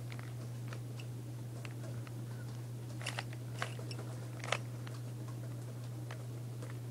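Plastic Rubik's Cube layers being turned by hand: scattered short clicks and crunches, a few sharper ones about three to four and a half seconds in, over a steady low hum.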